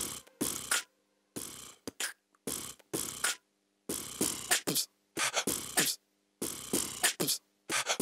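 Solo beatboxing into a stage microphone with no backing music: short phrases of sharp vocal drum sounds, broken by brief silent gaps.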